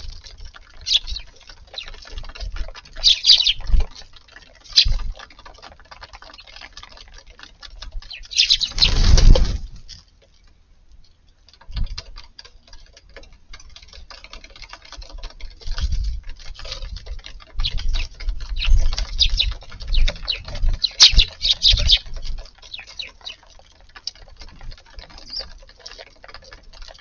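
Eurasian tree sparrows chirping in short scattered bursts, with many light ticks and patters around them. A loud rushing burst comes about a third of the way in, followed by a brief lull.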